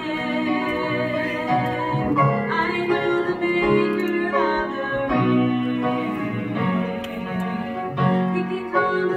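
Woman singing a slow song with held notes, accompanying herself on a grand piano.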